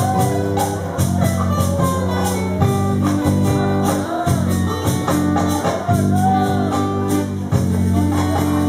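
A live folk band playing: acoustic guitars strumming chords, with a tambourine keeping a steady beat.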